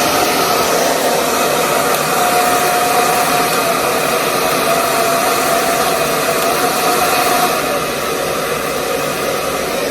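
Unikara 8700 ionic hair dryer with a 2000-watt AC motor running with a steady, powerful rush of air and a faint motor whine. It eases slightly about three-quarters of the way through.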